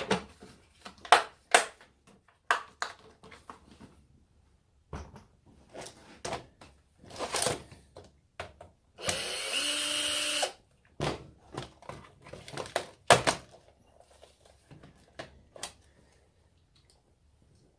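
Sharp clicks and knocks of a plastic electronic toy's casing being handled and worked apart. Near the middle, a power drill whirs steadily once for about a second and a half.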